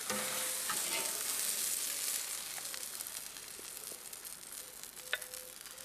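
An ortau pork sausage sizzling on a charcoal grill: a steady hiss with fine crackles that slowly fades toward the end, with a few faint clicks.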